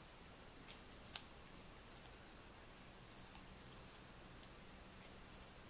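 Faint, scattered light clicks and taps of paper being handled as letter stickers are pressed onto a card, the sharpest about a second in.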